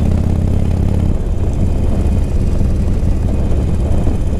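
Motorcycle engine running at a steady pace with a steady rush of noise, as heard from a rider-mounted microphone.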